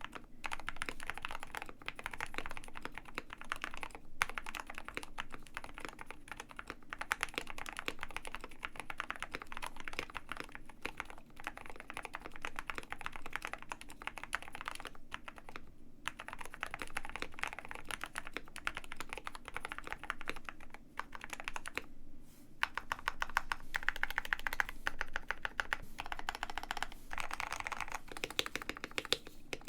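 Fast, continuous typing on a KBD67 Lite R2 65% mechanical keyboard with Gateron Black Ink V2 linear switches: a dense run of key clacks, broken by a few short pauses.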